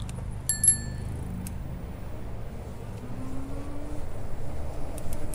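Bicycle rolling along a paved trail with a steady low rumble, and sharp metallic clicks about half a second in, one with a brief ring, plus a few more near the end, as the bike jolts over cracks in the pavement.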